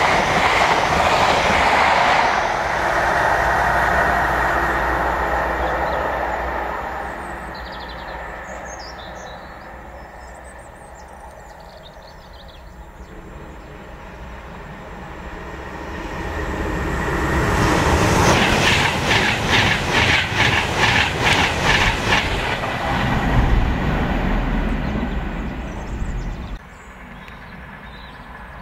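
A yellow HST with Class 43 diesel power cars passing at speed, the rumble of its wheels fading away over several seconds. About fifteen seconds in, a second train sound swells with a rapid clatter of wheels over rail joints, about three clicks a second, then cuts off abruptly near the end.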